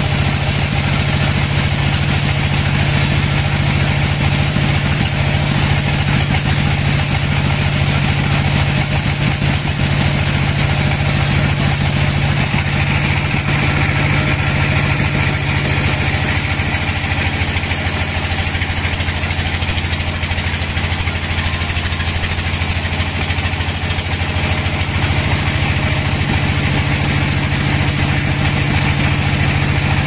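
Band sawmill running with its blade cutting through a large log: a steady mechanical hum with a hiss above it. The hum drops lower for about ten seconds in the middle, then returns.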